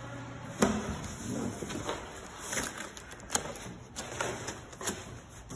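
Large cardboard shipping box being handled: a string of knocks, scrapes and rustles of cardboard, the loudest knock about half a second in.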